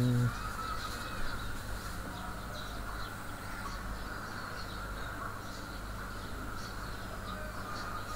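Steady background hum and hiss of room tone, with a few faint, brief high chirps.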